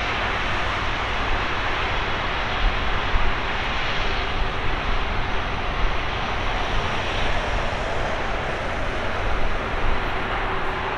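Airbus A330-343's two Rolls-Royce Trent 700 turbofan engines running steadily as the airliner taxis after landing, a continuous jet noise with low rumble.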